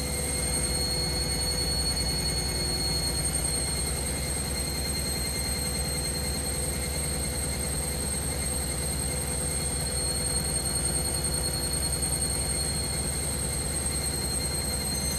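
Washing machine running steadily: a low, fast-pulsing rumble under a constant high-pitched motor whine.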